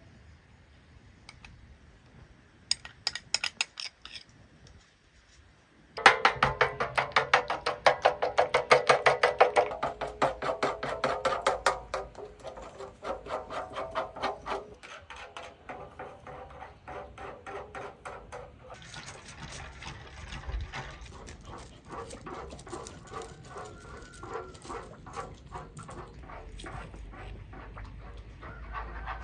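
A metal spoon beating egg yolks and spice paste in a wide metal tray: a few sharp taps, then quick, even clinks against the ringing metal, about six a second. The clinks are loudest for several seconds, then go on as softer stirring.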